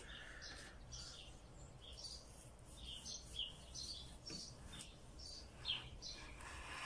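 Small birds chirping faintly in the background, scattered short calls, some falling in pitch. A soft knock of a knife against a wooden cutting board comes a little past four seconds in.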